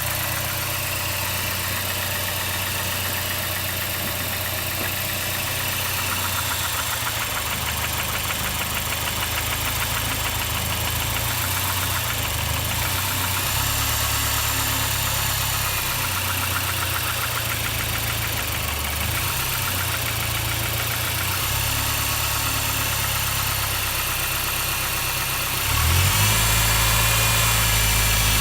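Mazda 6 MPS turbocharged 2.3-litre four-cylinder engine idling steadily while being checked for a knock. Near the end it grows louder and deeper.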